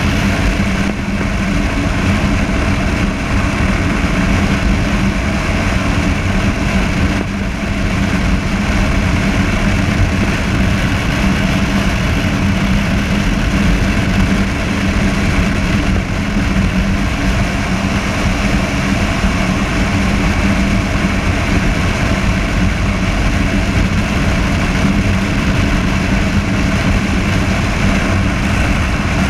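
Honda motorcycle engine running at a steady highway cruise, with wind and road noise; the engine note holds one pitch.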